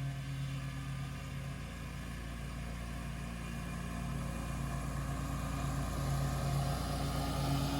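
Scag V-Ride II stand-on mower's engine running steadily, growing somewhat louder over the last few seconds.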